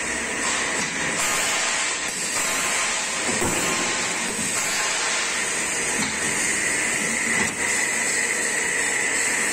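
CNC angle-steel punching machine running: a steady hiss with a high whine, and a few faint knocks.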